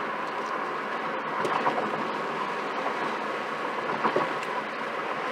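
Steady road and engine noise of a moving car, heard from inside the cabin, with a couple of faint knocks.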